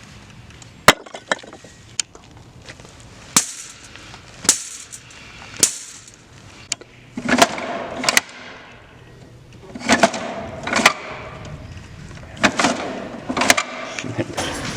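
A series of sharp knocks roughly a second apart, then three bunches of clattering impacts with a short rattling crash in each, made as foley sound effects.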